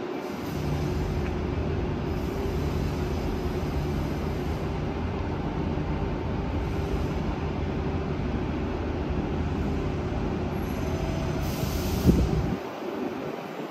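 Renfe class 252 electric locomotive rolling slowly into the terminus platform with a steady, loud low hum. Near the end comes a sharp knock, and the hum then stops.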